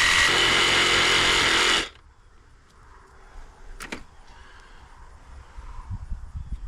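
A power tool cutting through a water line pipe, running in short bursts and then steadily for about two seconds before cutting off suddenly. A single sharp click follows a couple of seconds later.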